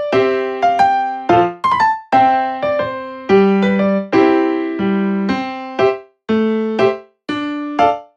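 Background music: a light, bouncy electric piano tune of short struck notes.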